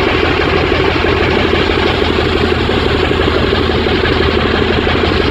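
Vehicle engine running steadily, a constant low drone with no changes in speed.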